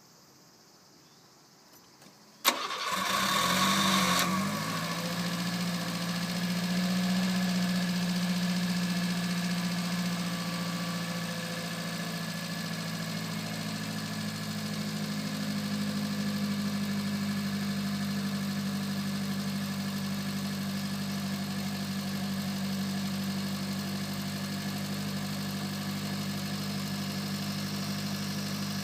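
Subaru Sambar's 658 cc four-cylinder engine being started: a click about two and a half seconds in, under two seconds of cranking, then the engine catches and idles steadily.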